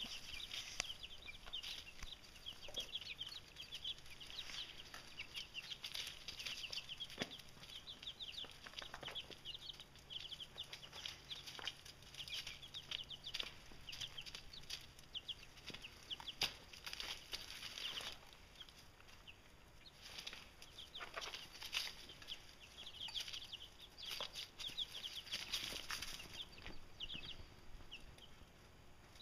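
Two-week-old chicks peeping continuously, many short high cheeps overlapping, with a few scattered taps among them.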